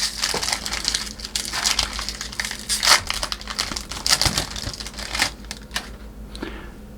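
Foil wrapper of a trading-card pack being torn open and crinkled by hand, a run of crackling rustles that dies down about five and a half seconds in.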